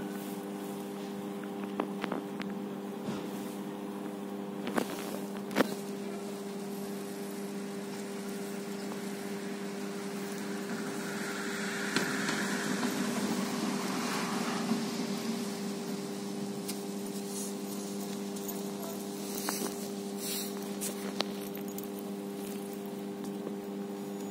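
A steady electrical machine hum, with a few faint clicks and a swell of broader noise for a few seconds about halfway through.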